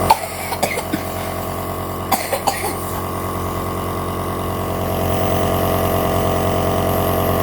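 Electric compressor nebuliser (inhaler) running with a steady mechanical hum that grows a little louder over the last couple of seconds. A child gives several short coughs in the first three seconds; the cough is the persistent one the inhalation is treating.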